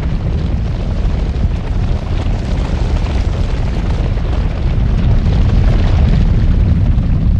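Volcanic eruption: a loud, dense, continuous rumble, heaviest in the deep low end, swelling slightly in the second half.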